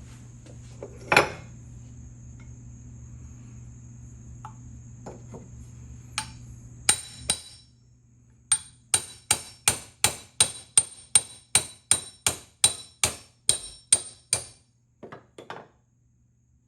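Hammer striking metal: one hard blow about a second in and a few lighter knocks, then a steady run of about seventeen evenly spaced ringing blows, roughly three a second, and two or three light taps near the end.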